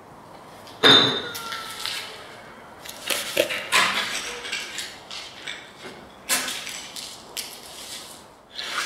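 A sharp clattering knock about a second in, with a brief ringing after it, then irregular crunching and scraping steps over rubble and broken glass on a concrete floor.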